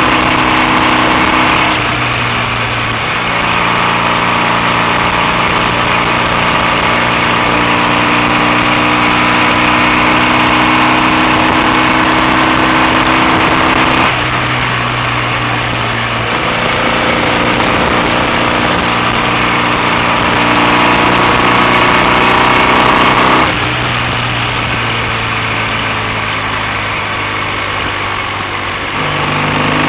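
BSA A65 650 cc parallel-twin motorcycle engine running on the road. Its pitch climbs slowly, then steps down sharply three or four times before climbing again.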